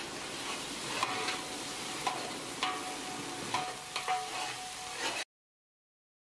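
Oil sizzling in a metal handi as a metal spoon stirs green chilli paste into the frying ginger-garlic masala. The spoon scrapes and knocks against the pot about once a second, some strikes leaving a brief metallic ring. The sound cuts off to dead silence about five seconds in.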